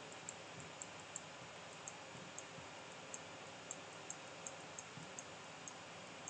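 Light clicks of a computer mouse at uneven intervals, about two a second, over a steady faint hiss.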